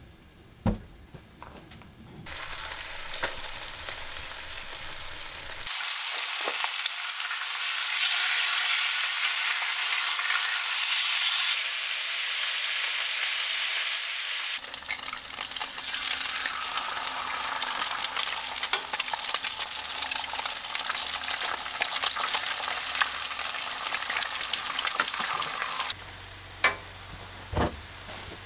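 Bacon frying in a skillet, a dense sizzle that is loudest in the middle and shifts in level abruptly a few times, with eggs frying alongside it later on. A few sharp clicks near the end.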